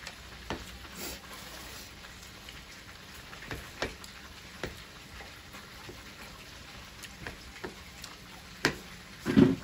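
Light, scattered clicks of chopsticks against plates while stir-fried rice noodles are eaten, over a low steady hiss, with a short louder noise near the end.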